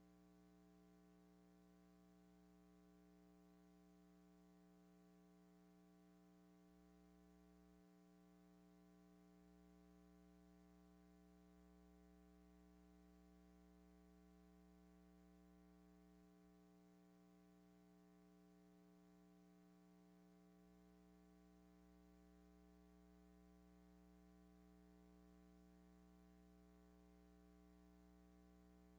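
Near silence: a faint, steady hum with no sound from the scene itself.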